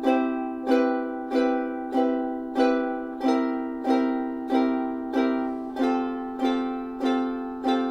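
Ukulele strumming one downstroke chord per beat, about three strums every two seconds, each chord ringing and fading before the next. It steps through a C, C major 7, C7, F, G7 chord progression, changing chord every few strums.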